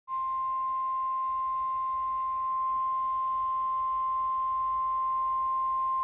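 NOAA Weather Radio's 1050 Hz warning alert tone: one steady, single-pitch tone from weather alert radios. It is the attention signal that comes before a spoken warning broadcast.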